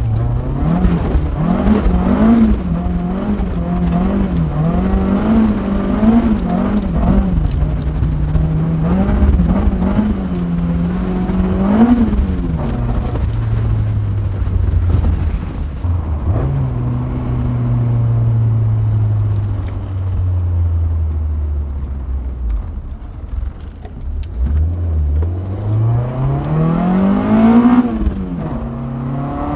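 K24 inline-four engine of a K-swapped Honda CR-V revving up and down again and again for the first dozen seconds. The pitch then falls away slowly as the engine drops to low revs, and it revs up once more near the end before easing off.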